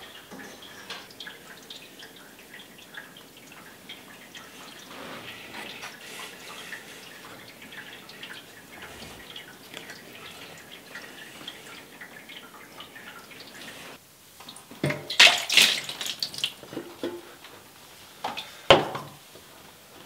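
Water splashing and pouring over a wet-collodion plate in a plastic darkroom tray, in a loud spell about fifteen seconds in and a short burst near the end; before that, only faint scattered clicks and rustling.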